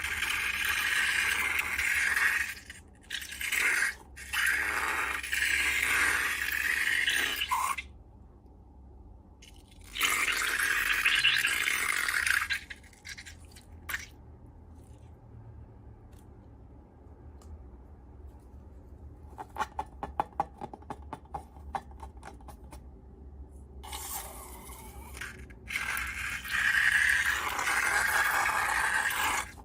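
Slime being handled and worked: several bursts of scraping, crackling noise lasting a few seconds each. In a quieter stretch in the middle there is a run of fast small clicks.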